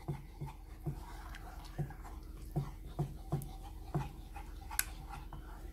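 A wooden spoon stirring thick, sticky starch paste in a saucepan, a soft stroke about two or three times a second, with one sharp tick near the end.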